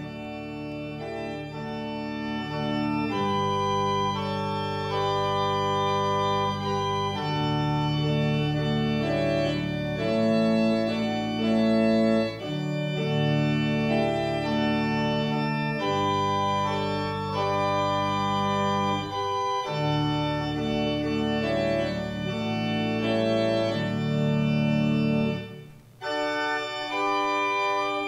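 Organ playing slow sustained chords over a held low bass, the chords changing every couple of seconds. The sound drops out briefly about two seconds before the end, then resumes.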